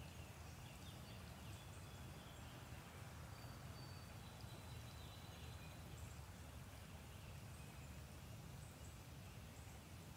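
Quiet woodland ambience: faint, scattered bird chirps and short whistles over a steady low background rumble.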